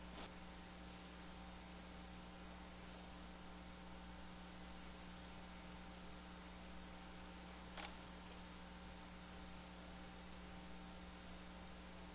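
Near silence: a steady low electrical hum with faint hiss, broken by a faint click near the start and another about eight seconds in.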